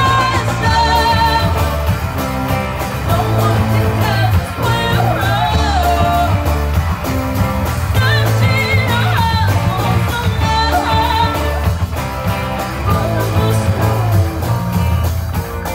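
Live rock band playing: a girl sings lead into a microphone with a wavering vibrato, over electric guitars and a drum kit.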